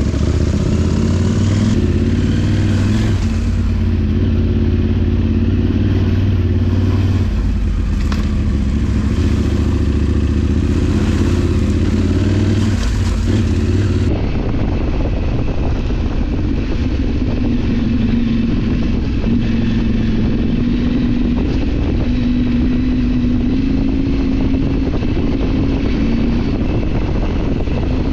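KTM Adventure R motorcycle's parallel-twin engine running steadily while riding, with road and wind noise. About halfway through, the sound changes abruptly and the engine note sits higher, wavering slightly.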